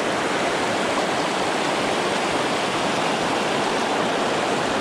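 Shallow, fast river water rushing over stones in a riffle: a steady, even rush with no let-up.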